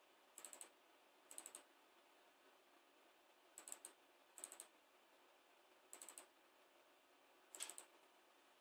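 Faint clicking of laptop keys, in six short clusters of a few quick clicks each, spread irregularly.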